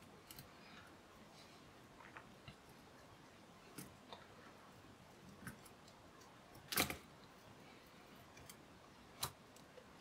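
Faint, scattered small clicks and taps of a pry tool and fingers working at a laptop's heatsink and tape, with one sharper click about seven seconds in and another shortly before the end.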